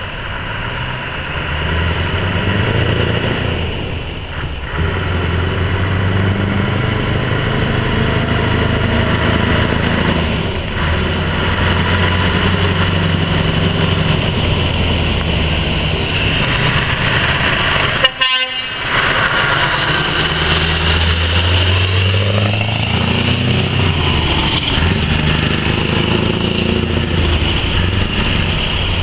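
Scania R620's 16-litre V8 diesel running through big-bore twin exhaust stacks as the truck pulls away and drives past, a deep steady engine note that dips briefly twice and later rises in pitch. A single sharp crack comes about two-thirds of the way through.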